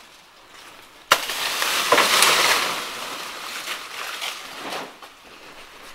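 A sharp snap, then a few seconds of rustling and crackling of leaves and brush that grows louder and then fades.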